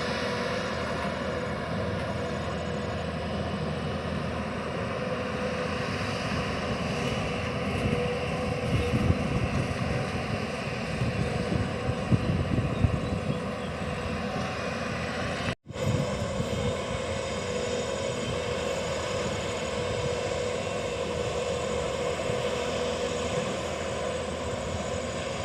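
Excavator's diesel engine running steadily with a constant hum, with a stretch of louder, irregular knocks and thuds near the middle as the machine works.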